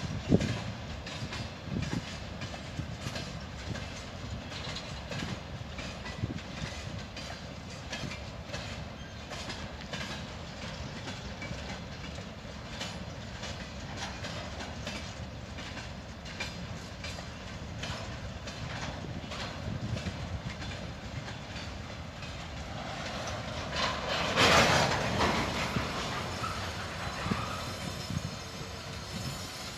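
Loaded freight train of hopper wagons rolling past: a steady rumble of wheels with regular clickety-clack as they cross the rail joints. It grows louder for a couple of seconds near the end.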